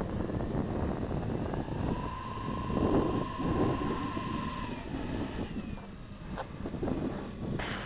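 Radio-controlled Dynam Grand Cruiser (Cessna 310R) model's twin electric motors and propellers running at low throttle as it taxis, with a steady whine for a few seconds in the middle.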